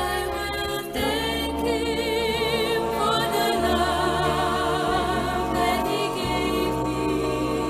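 Gospel vocal group singing in harmony, with vibrato on long held notes, over an instrumental backing with sustained bass notes.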